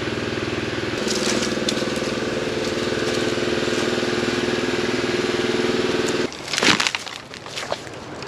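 A pump's small motor running steadily with a fast, even pulse, cutting off suddenly about six seconds in. After that, twigs and brush crackle and snap.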